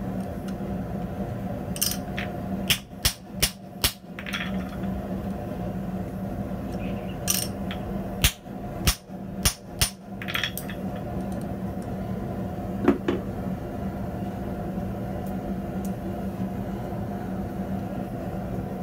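Hammer blows on a hand-held top tool set on red-hot steel over a steel block. A quick run of about five strikes comes first, four more follow midway, then one lone blow. A steady low hum continues underneath.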